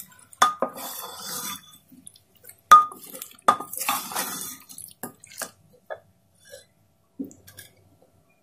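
A wooden spatula stirring thick potato and onion masala in a pressure cooker, scraping and knocking against the pot. Sharp knocks come about half a second, almost three seconds and three and a half seconds in. The stirring thins out to a few faint clicks over the last couple of seconds.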